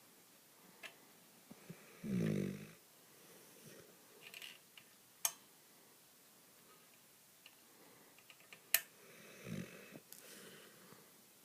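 Sleeping dog snoring: a loud pitched snore about two seconds in and a softer one near the end, with breathy exhales between. Two sharp clicks are also heard, about five and nine seconds in.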